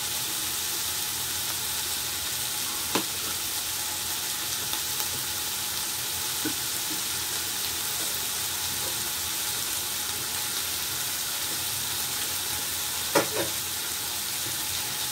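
Diced chicken, peppers and potatoes frying in oil in pans on a gas stove, a steady sizzle. A few sharp knocks come through it, one about three seconds in and two close together near the end.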